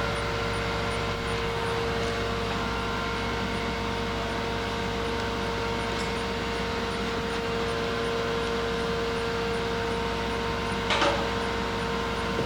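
Kellenberger 600U cylindrical grinder running with a steady machine hum and a constant tone, its hydraulic table traversing. A short burst of noise about eleven seconds in.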